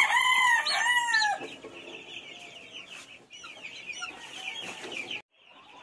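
Young chicks peeping. In the first second and a half there are several loud, arching peeps, from a chick held in the hand for eye-drop vaccination. After that comes the soft, rapid cheeping of many chicks, which drops out briefly near the end.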